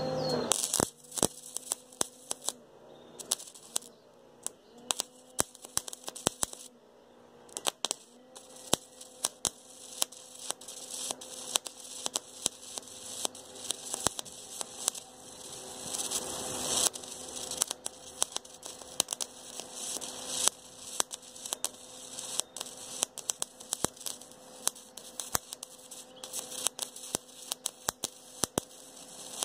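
Gasless flux-core wire-feed welder arc crackling and popping irregularly while welding a stainless steel tube, over a faint steady hum.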